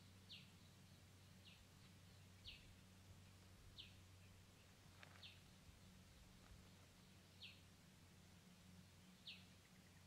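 Faint, short, high bird chirps, each falling quickly in pitch, about seven of them spaced irregularly, over a low steady hum.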